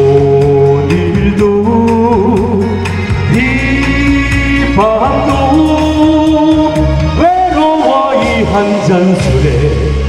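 A man singing a Korean song into a handheld microphone over loud backing music, holding long notes.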